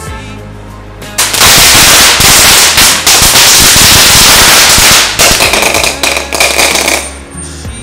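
A string of firecrackers going off in a dense, rapid crackle, starting about a second in, at full loudness for about four seconds, then thinning out near the end.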